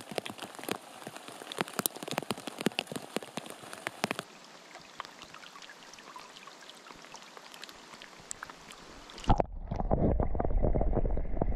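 Heavy rain pattering on the river and close surfaces, with many sharp drop ticks. About four seconds in it turns fainter and more even. Near the end it gives way to a loud, low churning rumble of water heard from underwater.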